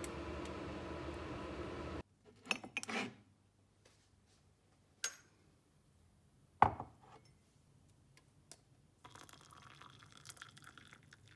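Kitchen sounds: a steady hum for the first two seconds that cuts off, then a few clinks and knocks of crockery, the loudest a sharp knock about two-thirds of the way through. Near the end, hot water is poured from an electric kettle into a ceramic mug.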